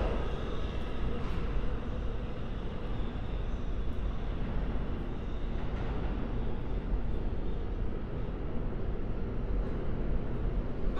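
Uptown E subway train pulling away into the tunnel, its rumble dying down into a steady low rumble with a few faint clicks from the rails.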